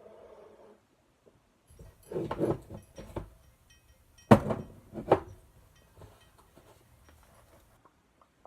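Handling noises: a few dull thumps and clunks, then two sharp knocks a little after four and five seconds in, as objects are moved about.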